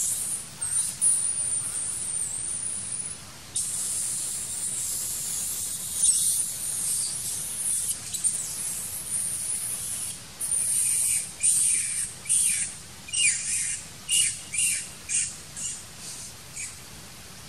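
Shrill, high-pitched drone of forest insects, steady for about ten seconds, then breaking into a run of short pulses about two a second that fade away.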